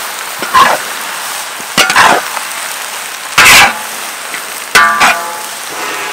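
Metal spatula scraping and striking a large metal wok while leafy greens are stir-fried, about once every second and a half, some strokes leaving the wok ringing briefly, over a steady sizzle.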